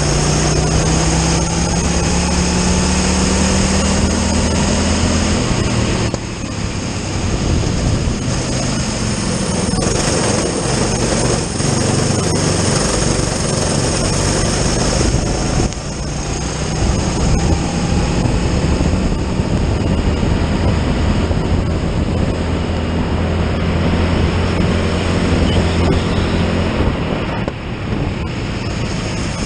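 Racing kart engine at full throttle, heard from onboard the kart: its pitch climbs along each straight and drops sharply three times, about 6 s in, about 16 s in and near the end, as the driver lifts off for corners.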